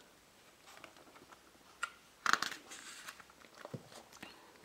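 Book pages being turned by hand: soft paper rustles and small clicks, with one louder swish a little past halfway.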